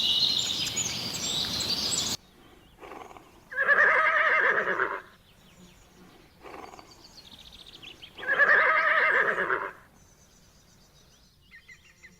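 Birds chirping until a sudden cut, then two long, loud, wavering calls from a farm animal, about four and a half seconds apart.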